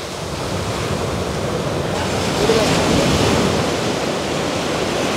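Ocean surf rushing steadily on the beach, swelling a little toward the middle. Men's voices call out faintly over it: the hauling chant that fishermen use to keep the pull on a net rope together.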